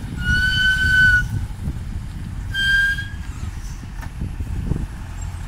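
Six-wheel dump truck's diesel engine running with a low rumble as the truck turns and backs into position. Two steady high whistle tones sound over it, one lasting about a second near the start and a shorter one about halfway through.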